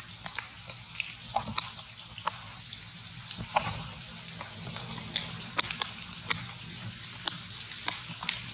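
Outdoor forest ambience: a steady high hiss with many scattered sharp ticks and crackles, over a faint low hum.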